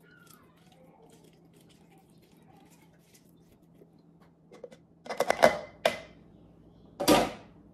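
Manual plastic citrus reamer in use: an orange half is twisted faintly on the reamer, then about five seconds in a quick clatter of plastic clicks as the reamer top is worked off the juice jar, followed by one louder knock near the end.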